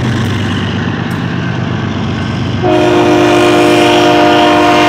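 Diesel freight train passing, with engine hum and rail rumble. About two and a half seconds in, a locomotive air horn starts sounding a steady multi-note chord and holds it.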